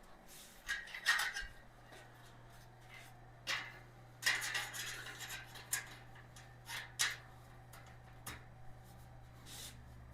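Metal shelf parts clinking and rattling as a steel storage shelf is fitted together, a string of separate sharp clinks and small clattering handling noises.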